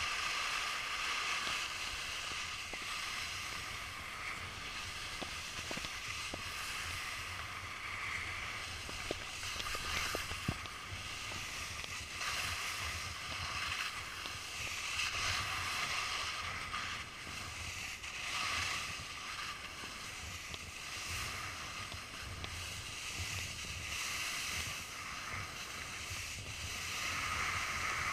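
Snowboard sliding down a snow slope: a steady hiss and scrape of the board on snow, rising and falling with the turns, mixed with wind rushing over the GoPro's microphone.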